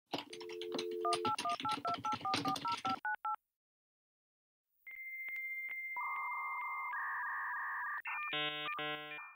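Dial-up modem connecting: a telephone dial tone, a quick run of touch-tone digits, a pause, then the answering modem's high steady whistle, ticking at regular intervals, giving way to the handshake's warbling tones and a many-tone screech near the end.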